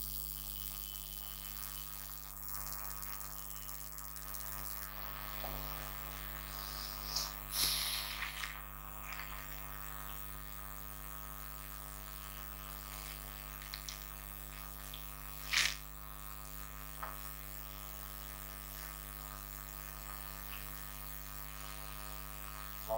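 Steady electrical mains hum. A few brief soft noises come around seven to eight seconds in, and a sharper click a little past halfway.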